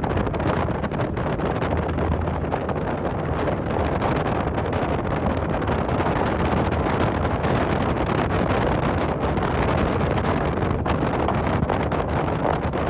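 Steady wind rushing over the microphone of a moving car, with the car's road and engine noise running underneath.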